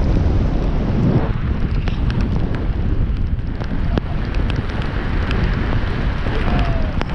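Strong wind buffeting the microphone in a hurricane rainstorm, a steady low rumble with scattered sharp ticks through it.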